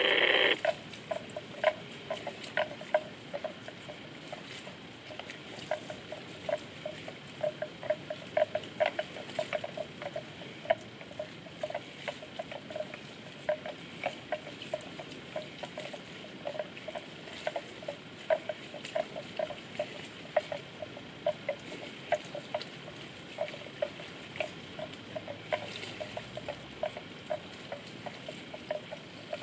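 Water buffalo grazing, tearing off mouthfuls of wet grass: a steady run of short crisp snaps, a few a second, over a light background hiss. A brief louder sound right at the start.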